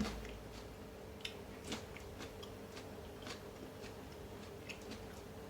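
Faint, scattered crunches and mouth clicks of someone chewing a fresh chili pepper, a few separate ticks over a low steady room hum.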